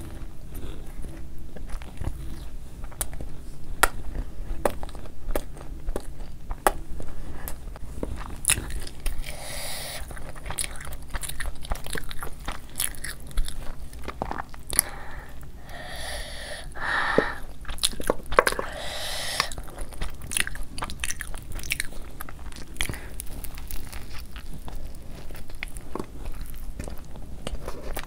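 Close-miked chewing of cheesy masala pav, soft stuffed bread rolls, with many wet mouth clicks and smacks. There are two longer, noisier stretches about a third and two-thirds of the way in.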